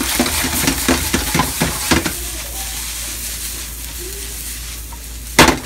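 Rice stuffing sizzling in a hot wok over a gas flame as it is tossed and stirred, with a quick run of scraping clatters in the first two seconds, then a steadier sizzle. A single loud knock near the end.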